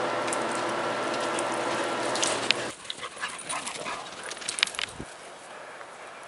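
A steady machine hum with several fixed tones that cuts off abruptly about two and a half seconds in. After it, two young dogs play, with a few short, sharp sounds over the next two seconds.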